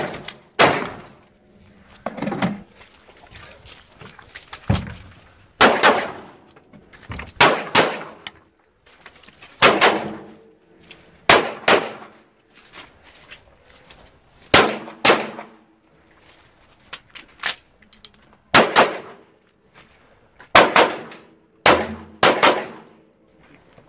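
Handgun shots fired singly and in quick pairs every second or two, several of them followed by the ringing clang of steel targets being hit.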